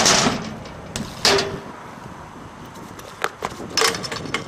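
BMX bike and rider crashing on a skatepark ramp and concrete: tyre scrapes and several sharp knocks and clatters, the last ones about three and four seconds in as bike and rider hit the ground.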